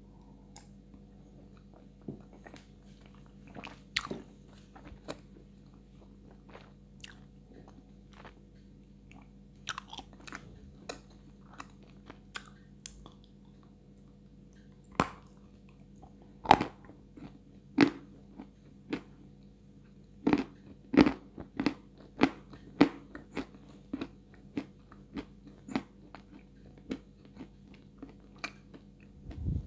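Close-miked biting and chewing of dry, medium-hard chunks of Astana 2 white edible clay, heard as sharp, irregular crunches. The crunches get louder and come closer together about halfway through.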